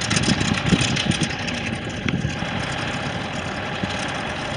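Radial engine of a Stearman biplane running at low power with a steady, rough drone as the plane taxis.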